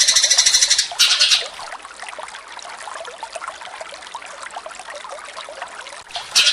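Eurasian tree sparrows fighting, giving fast, harsh chattering calls. The chattering breaks off about a second in. A quieter stretch of many scattered short chirps follows, then the loud chattering starts again near the end.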